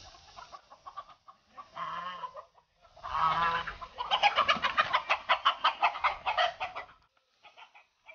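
Chickens squawking and cackling in alarm as they are chased to be caught. A rapid run of cackles, about seven a second, starts about four seconds in and stops about a second before the end.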